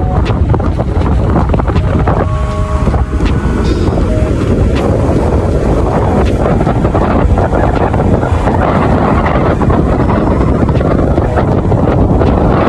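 Wind buffeting the microphone from a moving car: a loud, steady low rumble.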